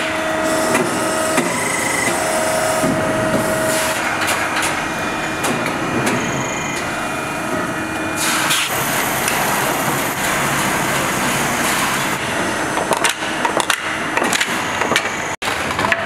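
Factory-floor noise from an electric-motor production line: machinery running under a dense clatter of clicks and knocks, with a couple of short steady tones in the first few seconds. The sound cuts out for an instant near the end.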